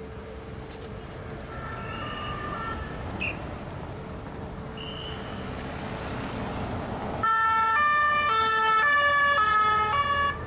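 Convoy traffic passing, with engine and tyre noise building and a faint two-tone siren in the distance. About seven seconds in, a loud French police two-tone siren starts suddenly, alternating between a high and a low note for about three seconds, then cuts off.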